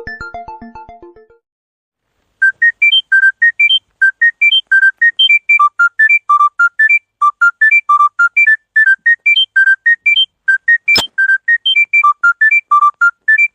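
Phone ringtone: a fast, high-pitched melody of short, pure, whistle-like beeps, about five notes a second. In the first second the previous ringtone fades out, then after a short gap this one starts; a single sharp click sounds about three-quarters of the way through.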